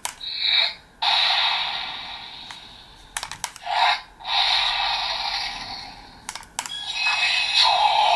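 An SSSS.GRIDMAN Primal Accepter toy bracelet playing its battle-mode sounds from its small speaker. Three clicks of the mode button each set off a short recorded Gridman shout and a rushing attack effect that fades out. Near the end comes the 'Grid Beam!' sound, with sliding tones.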